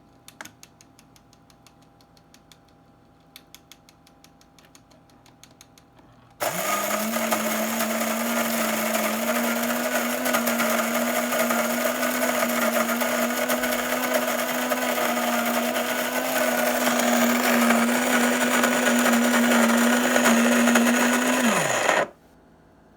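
Built-in bean grinder of a Cuisinart grind-and-brew coffee maker grinding whole coffee beans. After faint ticking, the grinder motor starts suddenly about six seconds in and runs loud and steady for about fifteen seconds. It then cuts out, its pitch dropping as it spins down.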